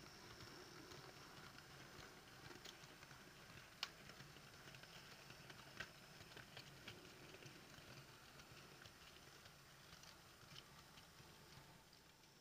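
Faint, irregular ticking and clicking of model railway goods wagons' wheels running over rail joints and pointwork, with two sharper clicks about four and six seconds in.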